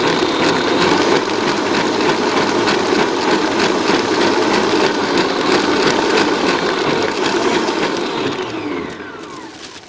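Electric stand mixer running fast, whisking cream and cream cheese in its steel bowl until the mix turns thick. Near the end the motor winds down and the noise fades.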